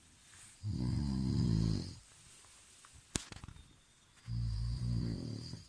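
Snoring: two long snores about three seconds apart, each lasting over a second, with a sharp click between them.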